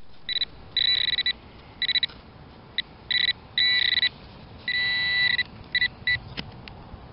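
Handheld metal-detecting pinpointer beeping in irregular on-off bursts of a high, steady tone as it is probed in loose soil, the signal that a metal target lies close by. The longest beep comes about five seconds in, followed by a couple of sharp clicks.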